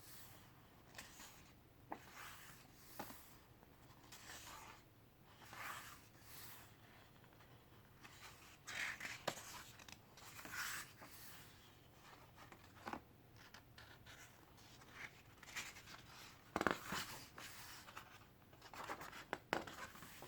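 Pages of a photo essay book being turned and handled: soft, short paper swishes every second or two, with a few light clicks.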